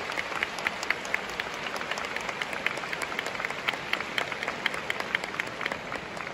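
A large arena crowd applauding: a dense patter of many hand claps over a steady wash, easing slightly near the end.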